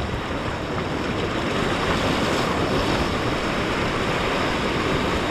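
Ocean surf washing in, a steady rushing of waves.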